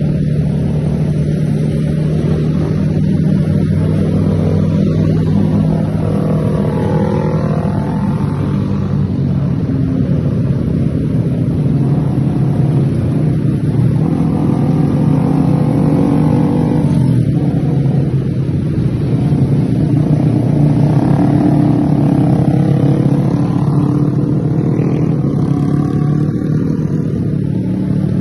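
Yamaha R15 V3's single-cylinder engine running steadily at idle, with a few slight rises in revs.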